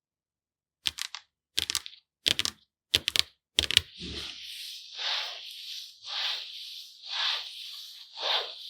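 Makeup being handled for ASMR: five quick clusters of sharp clicks and crackles. Then a steady scratchy swishing that swells in strokes about once a second.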